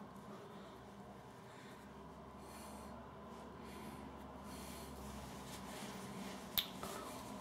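Faint, soft rustling of a towel drying a freshly shaved face, with one sharp click about six and a half seconds in.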